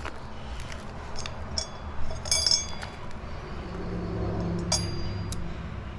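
A few light metallic clinks of steel motorcycle parts being handled as a new rear sprocket is fitted onto a Honda Grom's wheel hub. Two of the clinks ring briefly, about halfway through and near the end.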